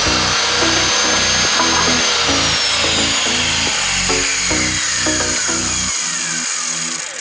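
Power saw cutting wood, a steady hiss with a whine that falls in pitch, under background music with a steady beat.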